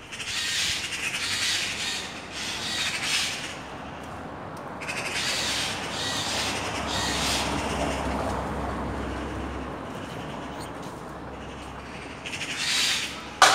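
Eurasian magpies chattering: harsh, rapid rattling calls in several bursts over a low steady rumble, with one sharp click just before the end.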